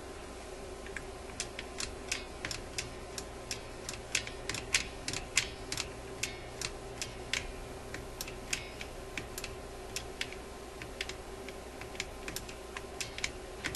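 Irregular sharp clicks, a few a second, from the mechanism of a Seeburg Tormat electrical selector being worked on the bench, over a steady faint hum.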